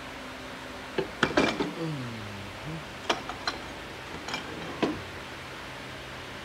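Metal-on-metal knocks and clinks as the oil pump assembly of a ZF 8HP eight-speed automatic transmission is worked loose and pulled from the transmission case by hand: a quick cluster about a second in, then single sharp taps spread over the next few seconds.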